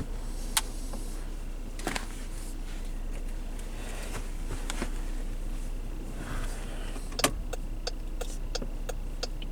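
Inside a 2016 Dodge Durango: a steady low vehicle hum with a few scattered clicks. From about seven seconds in comes an even ticking, about three ticks a second.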